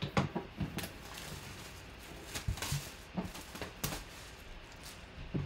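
Clear plastic bag crinkling and rustling irregularly as hands pull it back off a cardboard box, with a few low knocks from the box being handled.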